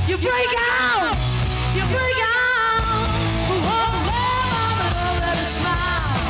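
A live rock band playing, with a woman singing lead into the microphone: loud, held notes that slide up and down in pitch over electric guitar, bass guitar and drums.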